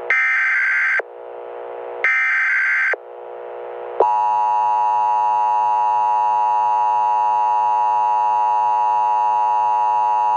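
Emergency Alert System tones: two one-second bursts of screeching data tones a second apart, then, about four seconds in, the steady two-tone EAS attention signal begins and holds.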